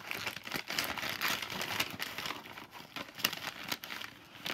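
Hands rummaging through a container, with crinkling and rustling and scattered light clicks and knocks.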